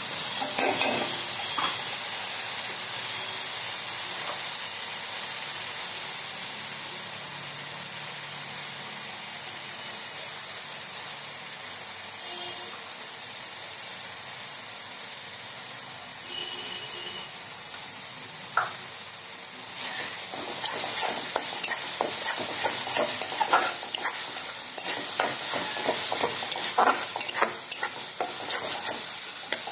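Ground onion, garlic, ginger and chilli paste sizzling in hot oil in a pan, a steady frying hiss. A metal spatula scrapes the pan briefly about a second in, then stirs and scrapes it in quick repeated strokes through the last third.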